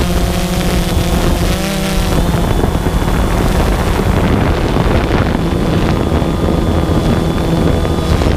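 DJI Phantom 2 quadcopter's four electric motors and propellers droning steadily, heard from the camera mounted on the drone, with wind buffeting the microphone. The drone's pitch wavers briefly about two seconds in.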